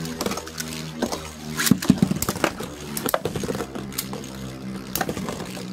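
Two metal Beyblade spinning tops, Storm Pegasus 105RF and Lightning L-Drago 100HF, spinning in a plastic stadium: a steady whirring hum broken by many sharp clicks.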